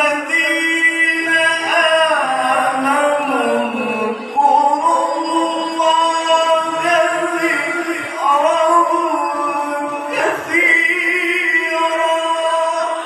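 Male qari's melodic Qur'an recitation (tilawah) into a handheld microphone. He holds long notes and moves between them in ornamented runs that slide down and back up.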